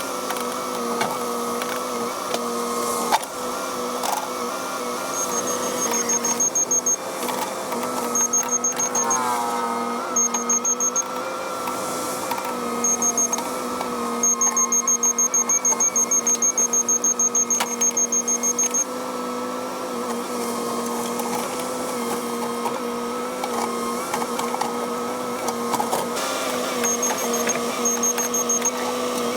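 Cat 308 mini excavator's diesel engine and hydraulics running steadily, with a fixed-pitch whine and a short falling glide about nine seconds in. Runs of rapid, high-pitched beeping come and go, the longest about halfway through.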